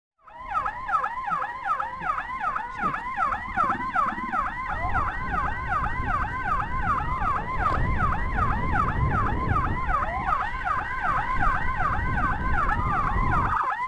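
Electronic emergency siren yelping rapidly, about four rising-falling sweeps a second, with a steady higher tone coming in twice and gliding down at its end, over motorcycle engine and road rumble. It stands in for the siren the escorted ambulance lacks.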